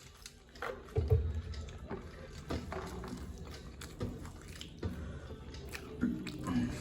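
Close-up wet chewing and mouth sounds of people eating puffed rice and snacks, with irregular soft clicks and knocks; the heaviest knock comes about a second in.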